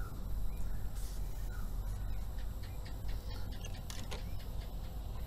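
Light clicks and handling noise from a dipstick being worked in a ride-on mower's oil filler tube with a rag, over a steady low background rumble.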